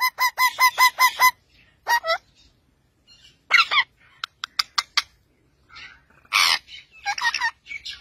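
Rose-ringed parakeets calling: a quick run of about seven short chirps at the start, then scattered calls, a brief cluster of sharp clicks in the middle and a harsh, noisy call about two-thirds of the way in.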